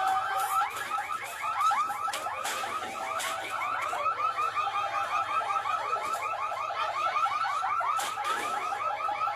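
An electronic alarm warbling in rapid repeating chirps without a break, with several sharp knocks through it.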